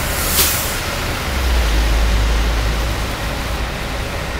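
Freeway traffic on wet, flooded pavement: a steady rush of tyre and road noise, with a short hiss about half a second in and a deep rumble that swells for a second or two.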